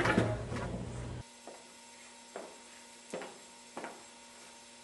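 A low hum that cuts off about a second in, then quiet room tone with four soft, evenly paced footsteps.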